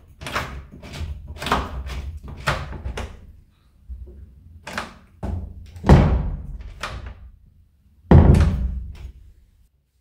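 Nuki Smart Lock Pro on a door being turned by hand to lock and unlock: a run of mechanical clicks and knocks from the lock and door, with two heavier thunks about six and eight seconds in.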